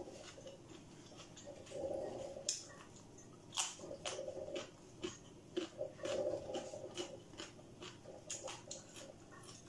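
A person chewing and smacking their lips while eating stir-fried instant noodles, a run of short, irregular wet clicks and smacks.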